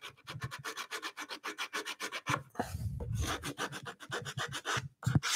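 Abrasive paper wrapped round a wooden offcut block rubbed over the edge of an oak board in quick back-and-forth strokes, rounding off its hard edges and corner.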